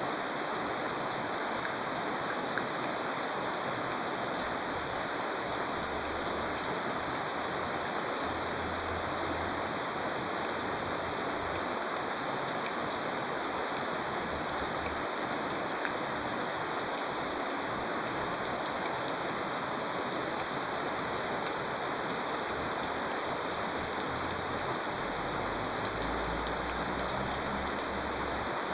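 Steady rainfall: an even hiss, with faint ticks of individual drops scattered through it.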